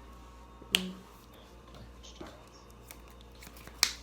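Two sharp snaps, about three seconds apart, over faint room noise.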